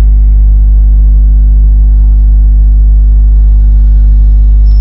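Loud, steady electrical mains hum with a buzz of overtones, a constant drone that does not change.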